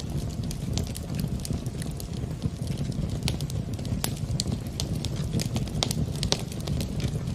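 Wood fire in a fireplace crackling: irregular sharp pops and snaps over a low, steady rumble of the burning fire.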